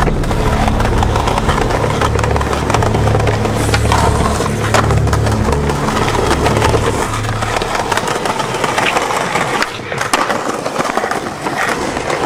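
Skateboard wheels rolling on smooth concrete with a steady low rumble, broken by several sharp clacks of the board: tail pops and landings.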